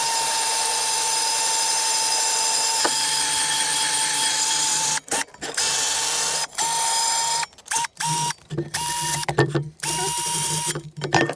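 Hyper Tough cordless drill spinning a wire brush against a rusty cast iron skillet: a steady motor whine over wire scratching, scrubbing the rust off. One long run of about five seconds, then several shorter bursts with brief stops between them.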